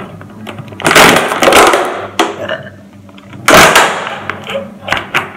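Empty plastic water bottle crackling loudly as it is squeezed and handled, in two bursts: one about a second in that stops abruptly, and another about three and a half seconds in that fades away.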